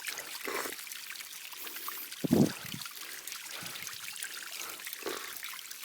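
Water pouring and trickling steadily from a tree's roots, with a few brief louder low sounds, the loudest a little over two seconds in.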